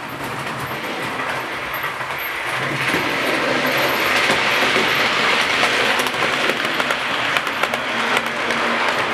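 00 gauge model steam locomotive and coaches running along the track, a whirring rumble that grows louder as the train approaches and passes close by. Rapid clicks of the wheels over the rail joints come through in the second half.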